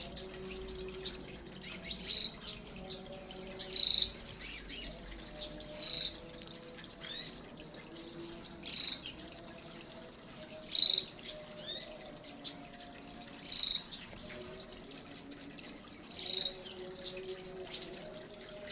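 Small birds in an aviary chirping, in short rapid bursts of high chirps about every two seconds.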